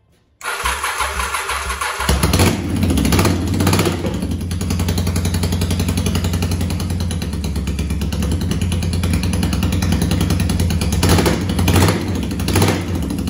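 Honda Shadow V-twin motorcycle engine turning over and catching about two seconds in, then running and being blipped on the throttle a few times near the start and again near the end. This is the freshly rebuilt engine, with new pistons and cleaned carburettors, starting and running.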